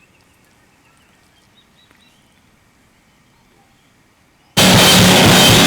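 Faint quiet ambience with a few small high chirps, then loud rock music with drums cuts in suddenly about four and a half seconds in.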